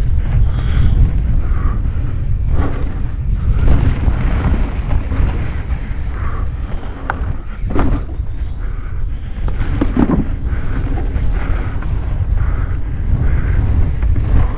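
Wind buffeting the microphone over the rumble of a mountain bike's tyres rolling fast on a dirt trail, with knocks and rattles as the bike hits roots and bumps, the sharpest about eight and ten seconds in.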